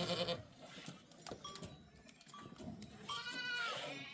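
Livestock bleating: the end of one call at the very start, then a single long, wavering bleat about three seconds in.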